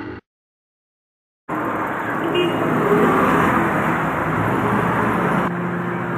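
City street traffic noise, cars and engines running past, beginning about a second and a half in after silence, with a short car-horn toot shortly after it starts.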